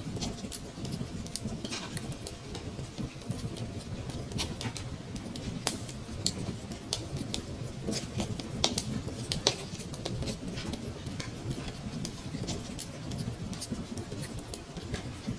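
Wood fire crackling in a fireplace: irregular sharp pops and snaps over a steady low rumble of flame, with a few louder pops around the middle.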